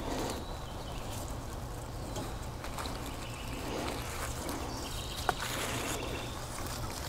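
Gloved hands rustling and pressing potting soil around young plants in a coco-fibre-lined hanging basket, over a steady low outdoor hum. One sharp click about five seconds in.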